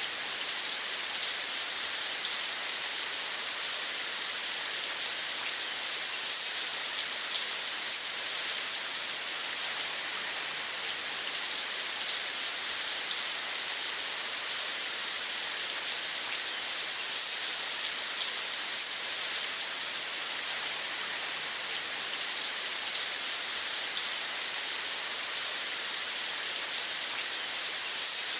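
Steady rain falling, an even hiss with a fine patter of drops and no change in strength.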